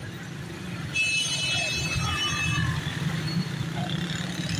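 Street traffic in a storm wind, a steady low rumble of passing motorcycles and cars with wind buffeting the microphone. About a second in, a shrill high-pitched tone sounds for about a second and a half, then cuts off.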